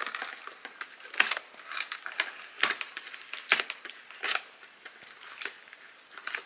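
Cardboard product box being pried open by hand: irregular sharp crackles and snaps of cardboard and packaging, about one a second.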